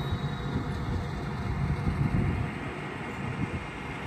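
Low, steady rumble of a California Northern diesel freight locomotive rolling slowly along the track.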